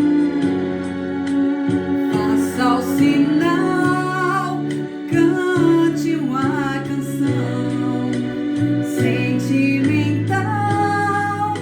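Singing over an instrumental backing track of keyboard and guitar, in a Brazilian pop song; the voice comes in about two seconds in with drawn-out, gliding notes.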